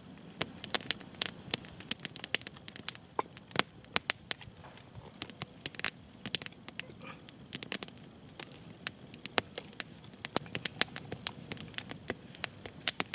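Metal spoon clinking and scraping against a tin-can cooking pot as goulash is spooned out: many sharp, irregular clicks over a faint steady hiss.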